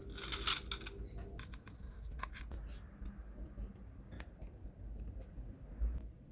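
Scissors cutting through material, with a loud rasping snip about half a second in, followed by scattered sharp clicks of handling.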